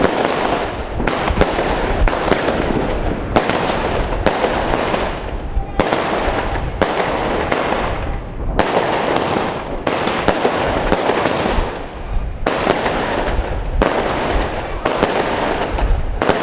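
Firecrackers and fireworks going off nonstop: a dense, rapid crackle with louder sharp bangs at irregular intervals and brief dips between bursts.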